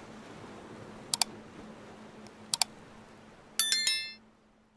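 Two sharp double clicks about a second and a half apart, like buttons being pressed on the 360 camera, then a short bright electronic chime of several quick ringing tones that cuts off as the recording ends.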